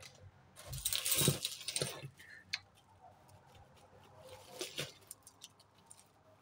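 Costume jewellery being rummaged in a heap: a bead necklace is pulled out with a clattering rush of beads and chains about a second in, followed by scattered light clicks of beads being handled and another short clatter near the five-second mark.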